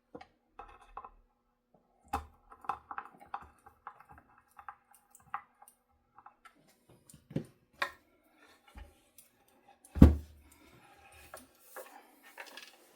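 Scattered small clicks and taps of screws being driven part-way into an electric guitar body by hand, with one louder knock about ten seconds in.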